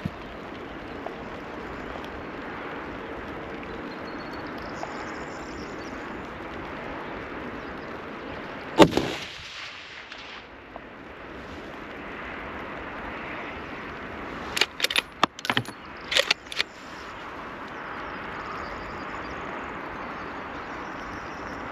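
A single rifle shot from a Tikka T3X TAC A1 bolt-action in .308 about nine seconds in. About six seconds later comes a quick run of sharp metallic clicks, typical of the bolt being worked to eject the case and chamber the next round. A steady hiss of rain lies under it all.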